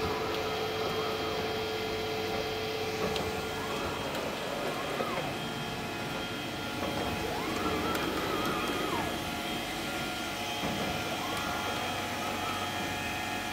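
Horizon BQ-440 four-clamp perfect binder running: a steady mechanical din with several constant tones, over which a higher tone rises and falls three or four times.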